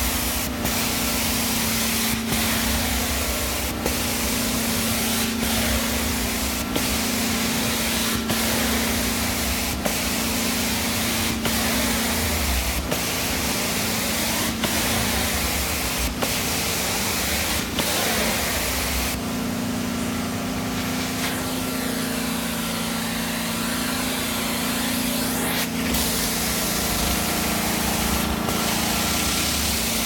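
Hot-water extraction carpet cleaner working carpet through its wand: a steady vacuum roar and spray hiss with a constant hum, and a short tick roughly every second as the wand is stroked back and forth.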